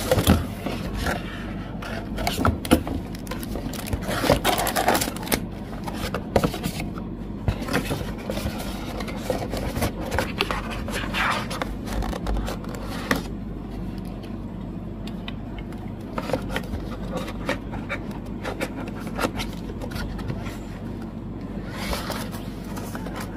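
Packaging and fan-kit items being handled during an unboxing: scraping and rubbing with scattered small clicks and taps. The handling is busiest in the first half and thins out after about 13 seconds, over a steady low hum.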